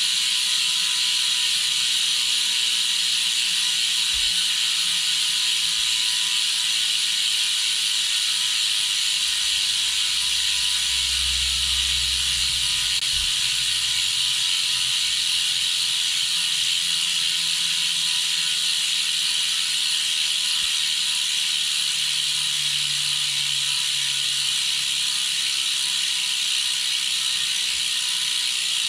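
Six-pawl ratchet freehub of a Superteam carbon rear wheel clicking as the wheel spins freely without pedalling. The clicks run together into a fast, even, high-pitched buzz.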